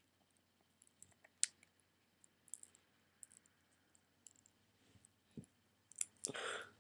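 Small clicks and taps of fingers working at a small iPod box to pry it open, with a sharper click about one and a half seconds in and a brief rustle near the end.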